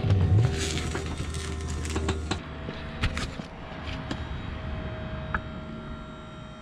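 Fifth-wheel trailer's electric landing jacks, on a Lippert One Touch system, retracting under motor power: a low hum gives way to a steady higher whine about two and a half seconds in. Several sharp clicks and pops come through as the trailer's weight settles onto the truck's hitch.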